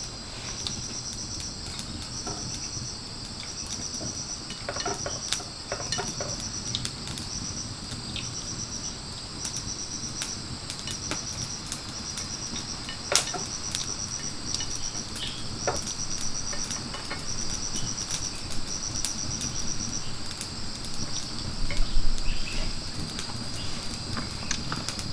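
Jungle insects, crickets among them, calling in a steady high-pitched chorus, with one high trill repeating in short bursts about once a second. Scattered light clicks and knocks sound over it, one sharper than the rest about halfway through.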